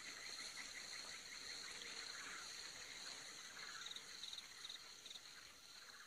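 Faint forest insect chorus: a steady high-pitched buzzing with quick trilling chirps repeating over it.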